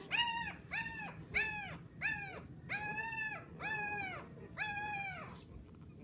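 A three-day-old puppy crying: a quick string of about nine short, high-pitched squealing cries, each rising and then falling in pitch, which stops near the end.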